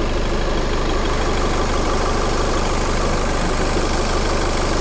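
Volkswagen Passat 2.0 diesel engine idling steadily, heard up close in the open engine bay. Freshly serviced, it runs smooth and even, "like a clock".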